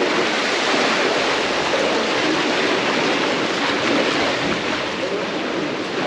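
A dense, steady rush of splashing water from a school of jack crevalle feeding in a blitz at the surface.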